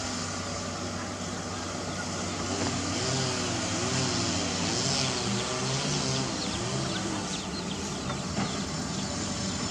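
Steady engine noise. For a few seconds in the middle a higher tone wavers up and down over it.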